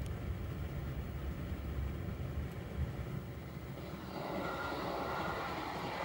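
JR Hokkaido 721-series electric multiple unit arriving at a level crossing. Its running noise swells in about four seconds in and carries on as the train crosses, heard from inside a waiting car over a low steady rumble.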